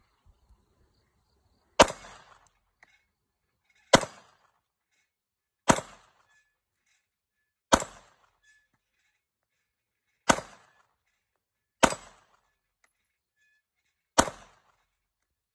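Glock 19 Gen5 9mm pistol fired seven times in slow single shots, about two seconds apart. Each shot is a sharp crack with a short tail.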